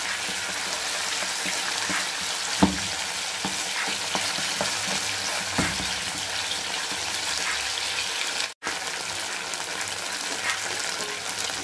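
Meatballs, onions and tomato paste sizzling in a stone-coated frying pan as a spatula stirs and scrapes through them, with scattered small taps and one sharp knock about two and a half seconds in; the tomato paste is being sautéed in the oil. The sound drops out for an instant about two-thirds of the way through.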